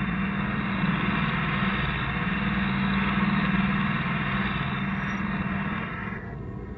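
A 1970s horror-film musique concrète score played backwards: a steady, engine-like low drone with a noisy hiss above it, easing off a little near the end.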